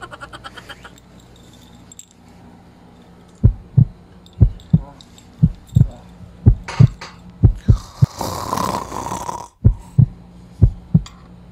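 Heartbeat sound effect: a deep double thump, about once a second, starting a few seconds in. Around eight seconds in a breathy hiss runs for about a second and a half over the beats.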